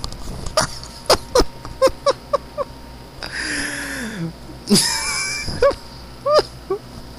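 A person laughing hard: runs of short, quick bursts about four a second, broken by long breathy gasps for air.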